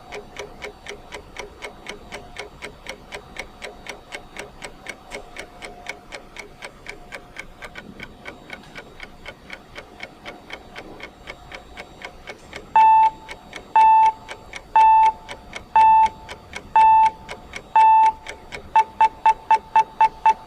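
Countdown timer's ticking clock sound: quick, even ticks. About thirteen seconds in, a high electronic beep joins once a second, six times, then speeds up into rapid beeps near the end, warning that the countdown is about to run out.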